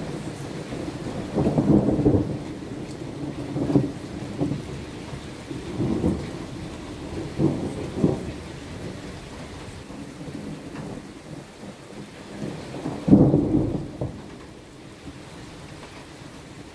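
Thunderstorm downpour: a steady hiss of rain with several short rumbles of thunder. The loudest rumble comes about thirteen seconds in.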